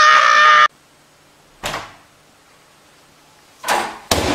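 A dog's squeaky toy squeezed in a long steady squeal that cuts off suddenly under a second in, followed by a few dull knocks, one about a second later and two close together near the end.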